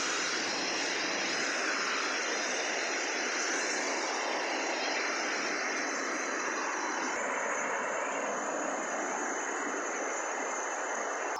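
Steady rushing of a waterfall and its stream of falling water, a constant even roar.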